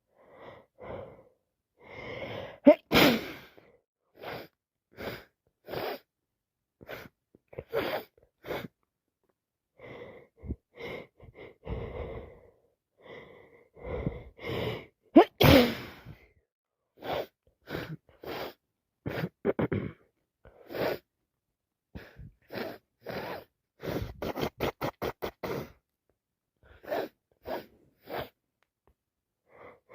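A person with a head cold and allergies sneezing repeatedly. Two loud full sneezes come about 3 s and 15 s in, with many short breaths and gasps between them and a fast run of short breaths late on.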